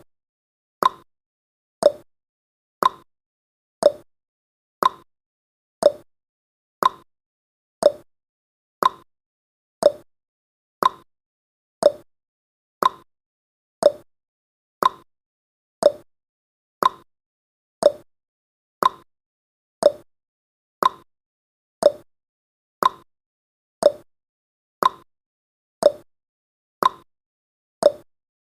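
Countdown timer's tick sound effect: one short pop-like tick every second, evenly spaced.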